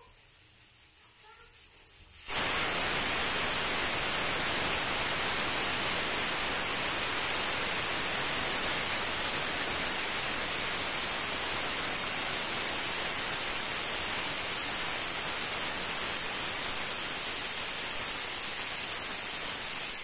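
Stovetop pressure cooker whistling: a faint hiss of steam builds for about two seconds, then steam blows out past the whistle weight in a loud, steady, high-pitched whistle that cuts off suddenly near the end.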